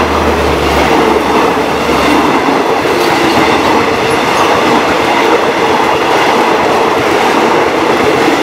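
Passenger coaches of a rapid train running past close by at speed: a steady, loud rush of wheels on the rails. A low hum underneath fades out about two seconds in.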